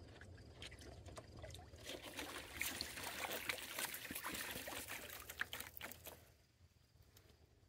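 Geese bathing in a shallow plastic paddling pool, splashing the water with many short splashes. The splashing builds about two seconds in and dies away about six seconds in.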